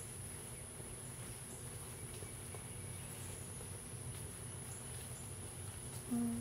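Insects droning steadily on one constant high note over a low outdoor background, with a few faint light ticks.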